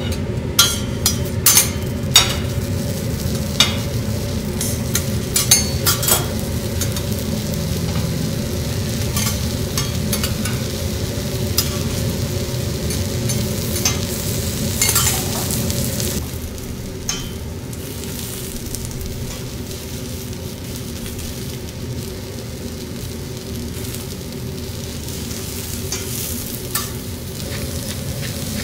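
Sliced onion, eggplant and zucchini frying on a steel teppanyaki griddle. Sharp clinks of a metal spatula and knife against the steel come many times in the first half. The sound is a little quieter after about 16 seconds.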